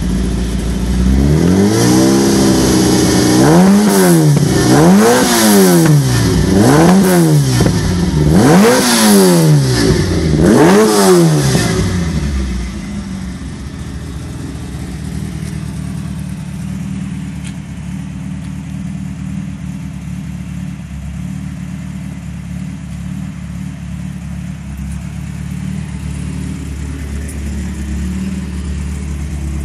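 Alfa Romeo Alfasud Sprint race car's flat-four boxer engine, heard through its side-exit exhaust, blipped up and dropping back about six times in quick succession. About twelve seconds in it settles to a steady idle.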